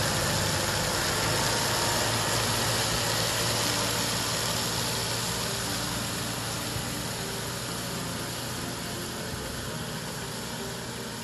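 Tractor engine running steadily as it drives and powers a PTO-driven twin-disc centrifugal fertilizer spreader: a low hum under a steady hiss, slowly growing fainter as the tractor moves away.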